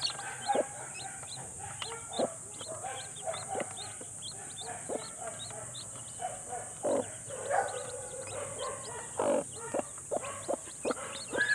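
Newly hatched chicks peeping rapidly in short high notes from under a broody hen, while the hen clucks low at the hand reaching under her. Sharp taps and rustling come from handling in the nest box.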